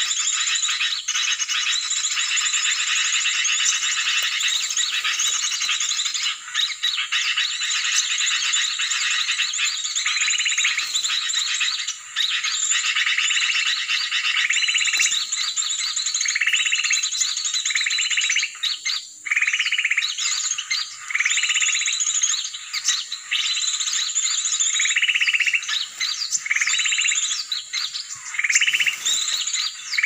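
Dense, high-pitched chirping chorus of forest birds and insects. From about ten seconds in, a short call repeats roughly once a second above it.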